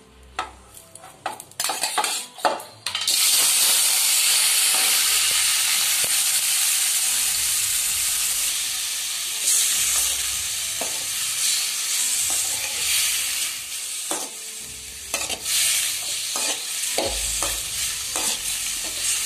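A few knocks of prawns and a slotted ladle going into a metal kadai, then, about three seconds in, prawns sizzling steadily in hot oil as they sauté until they curl. Near the end the ladle scrapes and clicks against the pan as they are stirred.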